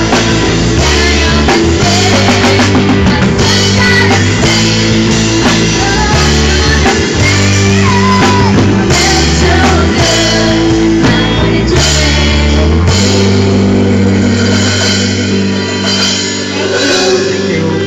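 Live rock band playing: drum kit and electric guitar over a bass line, with steady drum strikes. About thirteen seconds in the deepest bass notes drop out and the music gets a little quieter.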